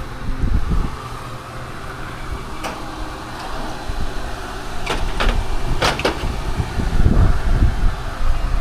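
Wind buffeting the microphone as a gusting low rumble, with a few sharp clicks around the middle.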